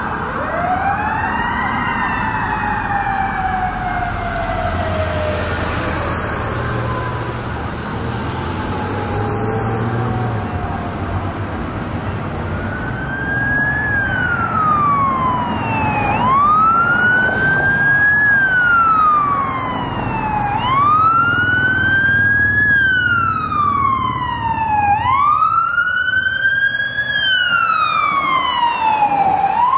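A fire engine's Federal Signal Q mechanical siren spins up briefly, then coasts slowly down in pitch over about ten seconds, with a truck engine rumbling underneath. From about halfway through, an ambulance's siren wails, sweeping up and down about every four and a half seconds and growing louder as it approaches.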